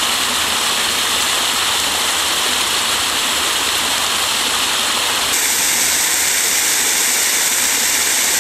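Loud, steady rush of a waterfall pouring over rocks. The sound changes abruptly and turns brighter about five seconds in.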